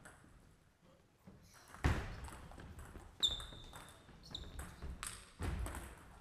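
Table tennis rally: the ball knocking off bats and table, with two heavy thuds, about two seconds in and near the end, and short high squeals about three and four seconds in.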